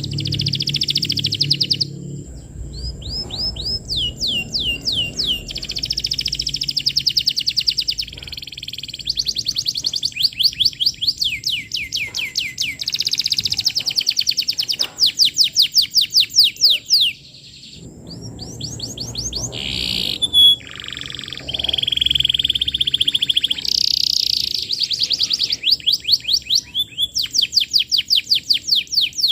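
Domestic canary singing in full song: long phrases of fast trills and rolls of repeated high notes, one phrase running into the next, with a brief pause about two thirds of the way through.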